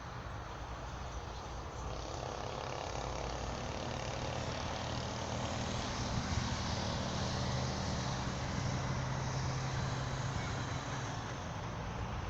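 A motor vehicle's engine hum with road noise. It grows louder about two seconds in, holds through the middle, and eases off slightly near the end, as a vehicle passing nearby would.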